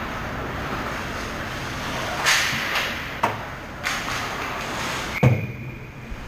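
Ice hockey play at the goal, heard up close from the net: a skate scrape, sharp stick-and-puck clacks, and a heavy thump against the goal about five seconds in, which is the loudest sound. A short ringing tone follows the thump.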